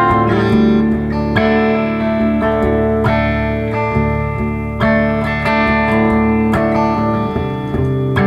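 2013 Gretsch White Falcon G6136T hollow-body electric guitar with Filtertron pickups, played through a Laney amplifier: chords struck and left to ring, with a new chord about every one and a half to two seconds and single notes moving between them.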